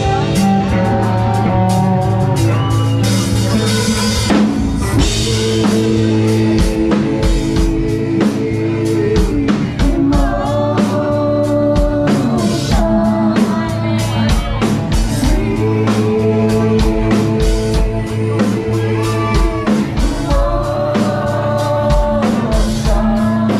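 Live rock band playing: amplified electric guitars, a drum kit keeping a steady beat, and a singer's voice over them.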